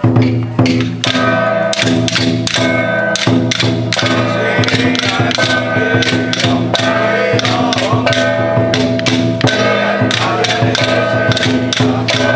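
Traditional temple ritual music: a pitched instrument holding long tones over a steady run of percussion strikes.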